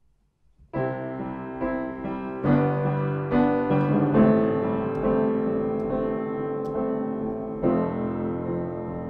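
Solo piano playing slow, sustained chords of the hymn tune as an interlude between sung verses. It comes in a little under a second in, after near silence, with a new chord struck about every second.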